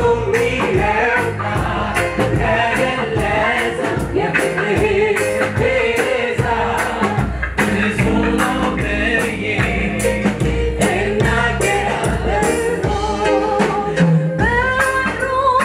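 A choir singing a gospel worship song over a band, with a steady drum beat and bass.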